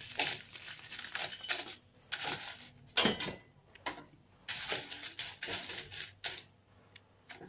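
Dried red chillies tipped into a hot metal kadai and stirred with a wooden spatula, rustling and scraping against the pan in short spells, with one sharp knock about three seconds in.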